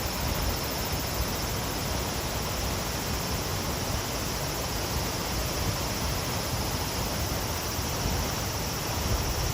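Otodome Falls waterfall: a steady rush of falling water.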